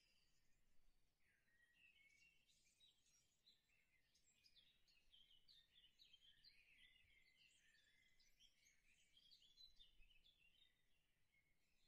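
Near silence, with faint, continuous twittering of many small birds.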